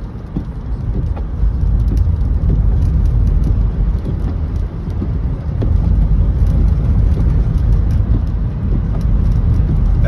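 Steady low rumble of car road and tyre noise heard from inside the cabin while driving on a snow-covered road, growing louder about a second in.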